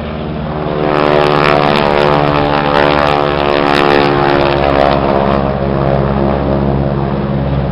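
Propeller-driven biplane flying low past, its engine droning loudly. The drone swells about a second in and holds steady.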